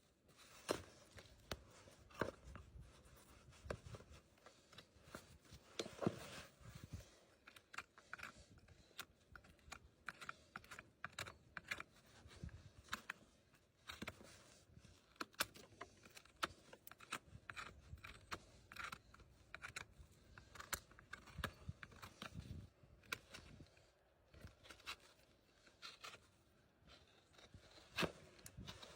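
Farrier's tools working on a horse's hoof: irregular snips, clicks and scrapes of the hoof horn being cut and pared, faint throughout.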